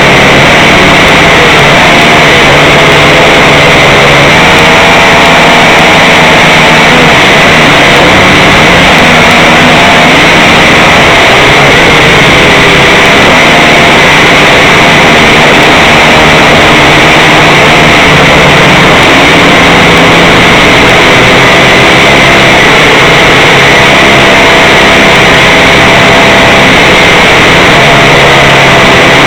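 Small drone's electric motors and propellers running loudly without a break, with a steady high whine and lower tones that waver in pitch as the motors change speed, heard close up and distorted as if from the drone's own microphone.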